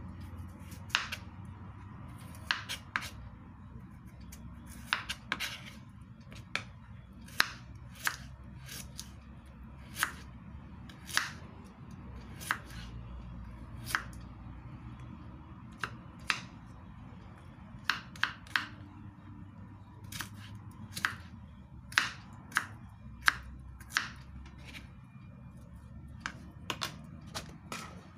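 Kitchen knife slicing broccoli stems on a cutting board: sharp, irregular knocks of the blade striking the board, about one a second.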